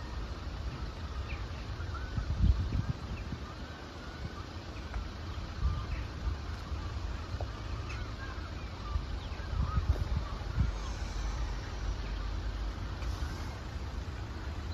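Outdoor ambience: wind gusting on the microphone in low rumbling buffets, strongest about two and a half seconds in and again around ten seconds, with faint, scattered bird calls.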